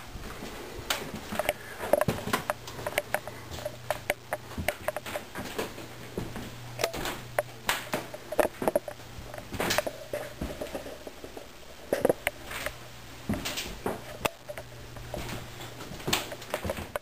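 Irregular footsteps and handling knocks, a series of short clicks and taps one to a few a second, over a steady low hum.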